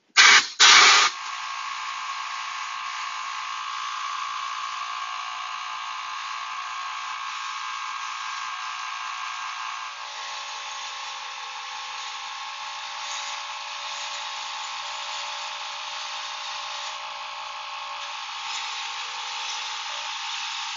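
Sandblast cabinet blast gun firing abrasive at chrome-plated motorcycle parts to strip the plating: two short, very loud blasts in the first second, then a steady rushing hiss of continuous blasting.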